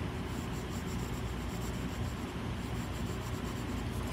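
F graphite pencil rubbing on paper, shading an area in with steady scratchy strokes.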